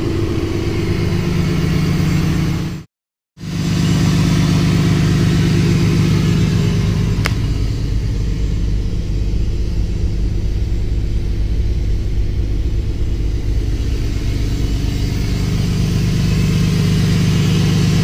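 The Cummins 6.7-litre turbo-diesel of a 2007 Dodge Ram 2500 idling steadily, with an even low hum. The sound drops out for a moment about three seconds in, and there is a single sharp click about seven seconds in.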